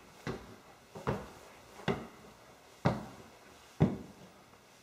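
Footsteps climbing wooden stair treads: five thuds about one a second, the last two the loudest.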